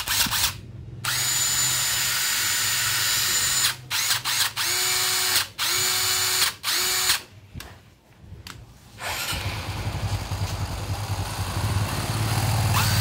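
DeWalt DCF911 cordless brushless impact wrench spun up with no load. It runs for about two and a half seconds, then gives four short bursts under quick trigger pulls, then runs steadily again from about nine seconds in.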